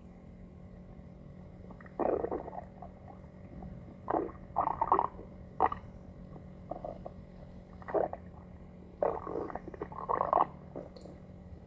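Stomach growling: a run of irregular gurgles and rumbles, some short and some drawn out, coming about a dozen times with brief gaps between them.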